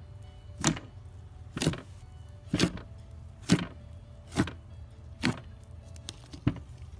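Intro music: a beat of sharp swishing hits about once a second over a steady low hum.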